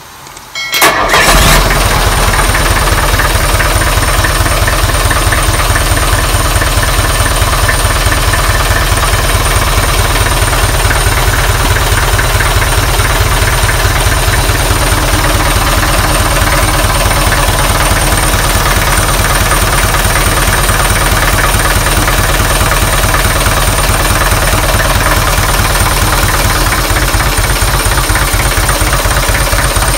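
Isuzu 4BA1 four-cylinder diesel engine starting: a brief burst of cranking about a second in, catching almost at once, then running steadily at idle with an even, rapid diesel clatter. A thin high-pitched whine sits above the engine once it is running.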